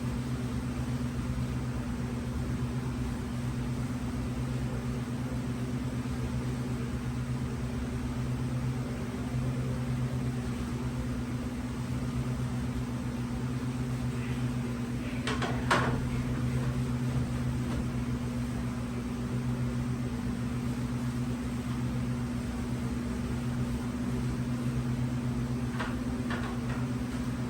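Steady, low-pitched hum of running electrical machinery. A brief clatter comes about halfway through, and a couple of faint knocks come near the end.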